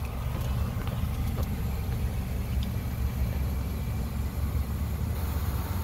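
Steady low rumble of a motor vehicle engine running nearby.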